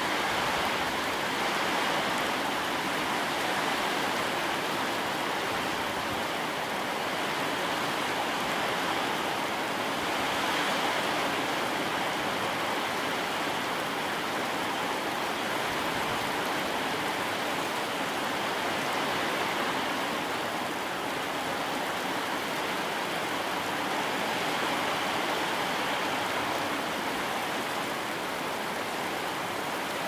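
Heavy rain pouring steadily onto flooded ground, a dense even hiss that swells slightly now and then.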